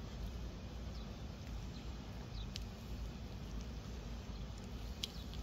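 Faint handling sounds of a tapered roller wheel bearing being packed with grease in a gloved palm: a few small clicks over a low steady hum.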